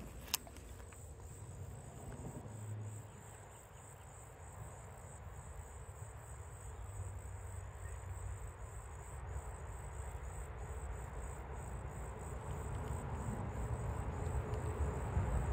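Insects trilling steadily at a high pitch over a low rumble that grows louder toward the end, with one sharp click just after the start.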